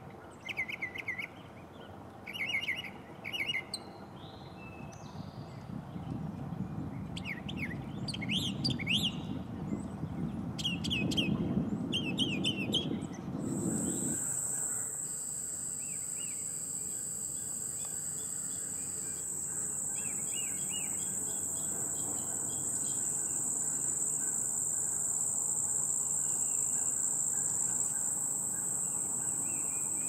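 Northern mockingbird singing in short phrases, each repeated several times, some sweeping sharply upward. About halfway through this gives way suddenly to a steady high-pitched drone of insects.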